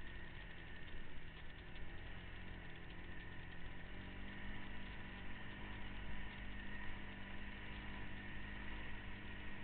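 Off-road vehicle engine running steadily while riding the trail, its pitch holding fairly even and a little fuller from about halfway through.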